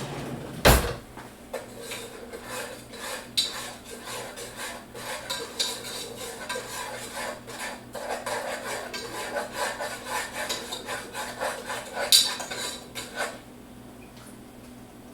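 A utensil stirring muffin batter in a mixing bowl: quick, repeated clinking and scraping against the bowl, with a sharp knock about a second in and another near the end, before the stirring stops.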